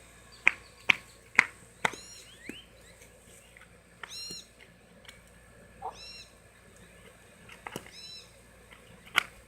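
A rubber bouncy ball bouncing on a hard surface: a quick run of sharp taps about half a second apart, each fainter than the last. A single tap comes near the middle and another near the end. A bird chirps in short high calls every couple of seconds.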